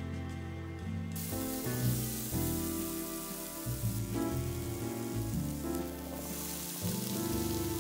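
Diced onion sizzling in hot oil in a frying pan. The sizzle starts about a second in and gets louder near the end as diced potato and carrot are tipped into the pan. Instrumental background music plays throughout.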